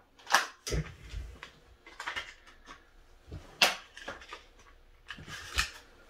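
A few sharp clicks and light taps, irregularly spaced, with a dull low thump about a second in, from small computer parts and tools being handled off to the side.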